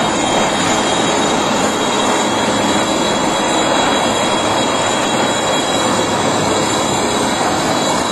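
Military transport helicopter in flight overhead: a loud, steady rotor and turbine noise with a thin, steady high whine.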